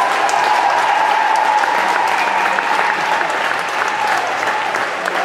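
Audience applauding steadily, a dense patter of many hands clapping. A steady tone sounds through it for the first four seconds or so, dropping slightly in pitch.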